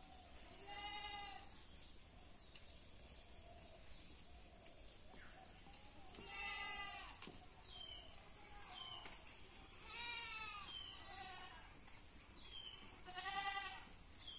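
A goat bleating four times, each call about half a second long, several seconds apart; the last is the loudest.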